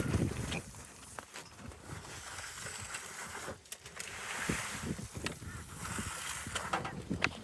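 Pigs grunting, dying away in the first half second. Then quieter scattered clicks and rustling, with faint grunts, around the pigs at their feed.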